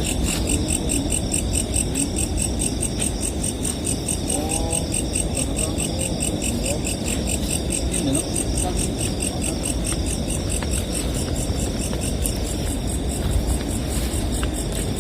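Crickets chirping at night in a fast, even rhythm that keeps up without a break, over a steady low rumble.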